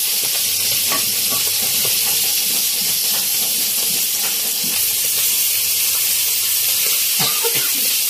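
Mudskippers frying in hot oil on a flat tawa griddle: a steady sizzle with scattered crackling pops as the fish spit in the oil.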